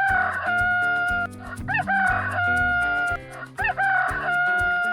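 Rooster crowing cock-a-doodle-doo three times, each crow a short rising note then a long held note, over cheerful background music.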